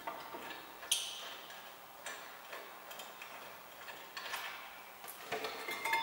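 Hand ratchet clicking in short runs as it unscrews a brake caliper bracket bolt, with a sharp metal click about a second in and light metal clinks near the end as the bracket is handled.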